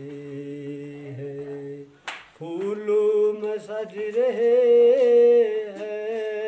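A man singing a Hindi devotional bhajan with no accompaniment, drawing out long held notes with a slight waver. He breaks off briefly about two seconds in, and the loudest note comes a little after the middle.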